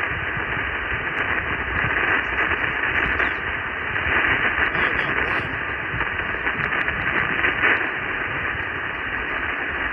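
Amateur radio receiver hiss on the RS-44 satellite downlink: steady static cut off above the voice band, heard while listening for a reply to a CQ call.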